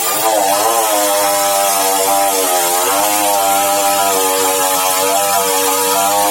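Sawmill machinery running: a steady, loud mechanical drone whose pitch wavers and dips now and then.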